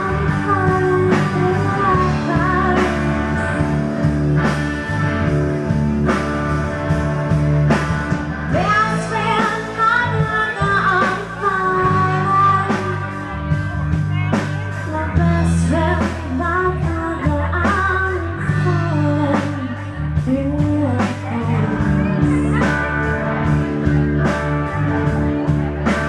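Live rock band playing: a woman singing over electric and acoustic guitars, bass guitar and a drum kit with regular drum hits.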